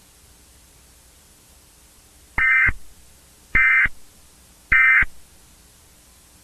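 Emergency Alert System end-of-message data signal: three identical short bursts of buzzy digital tones, about a second apart, marking the close of the alert.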